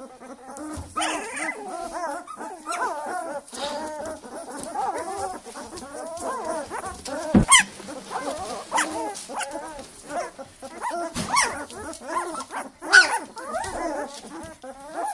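A litter of 15-day-old Northern Inuit wolfdog puppies whimpering, squeaking and yipping almost without a break, many short high calls overlapping, with a few louder sharp sounds in between.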